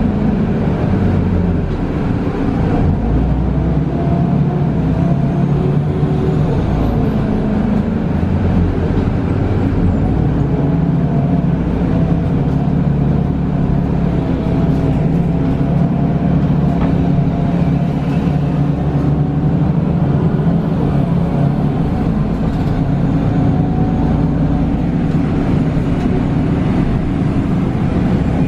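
Mercedes-Benz Citaro O530 G articulated CNG bus with ZF automatic gearbox, heard from inside while driving: a steady engine and road rumble with a faint whine that drifts up and down in pitch as the bus changes speed.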